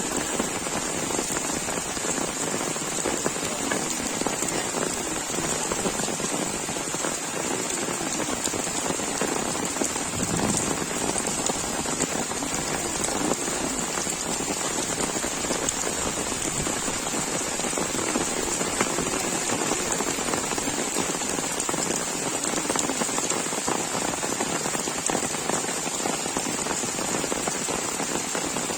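Steady rain falling, an even continuous hiss that neither builds nor fades, with a constant high-pitched hiss sitting over it.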